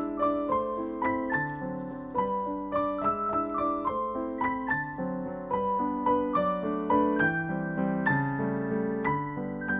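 Background piano music: a steady melody of single notes over chords.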